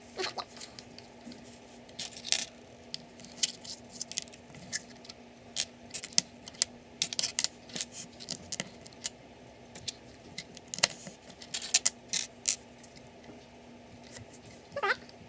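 Small plastic LEGO pieces clicking and clattering as they are handled and sorted, in many sharp, irregular ticks. A cat meows once, briefly, near the end.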